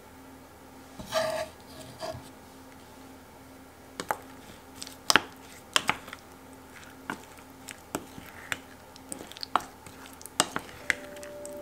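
A metal spoon stirs chopped strawberries in a stainless steel bowl, clinking and scraping against the bowl in sharp, irregular clicks. A brief ringing clank from the bowl comes about a second in.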